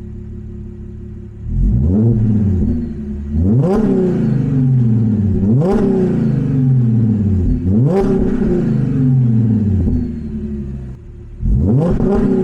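Supercharged 3.0 V6 of an Audi B8 S4 through an aftermarket AWE Track Edition exhaust, idling and then revved hard several times, the pitch climbing sharply and sinking back each time, with another rev near the end.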